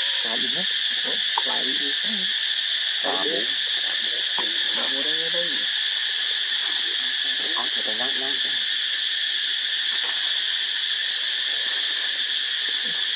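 Steady, high-pitched insect chorus, an unbroken drone throughout, with a few short vocal sounds in the background during the first half and again about eight seconds in.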